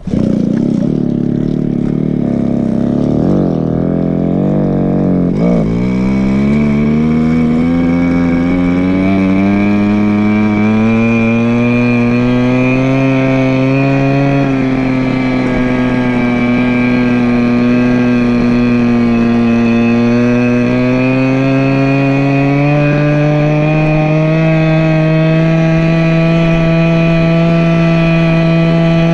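Go-Ped scooter's small engine running on the move. Its note is uneven for the first few seconds, then climbs steadily from about six seconds in and holds high, rising a little again near the end.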